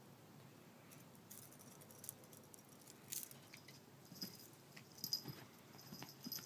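Faint scuffs, pats and light knocks of a cat's paws scrambling on carpet as it pounces on a laser dot, with a faint metallic jingle in the second half.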